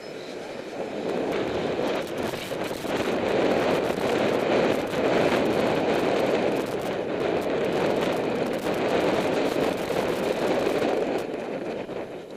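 Wind buffeting the microphone while riding a cyclocross bike at speed over bumpy grass, with frequent sharp rattling clicks from the bike jolting over the ground. It grows louder about two seconds in and eases off near the end.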